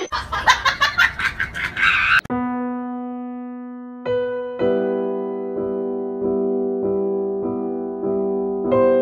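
A quick, even run of clicks for about two seconds, then slow piano music: held chords, restruck about every half second from about halfway in.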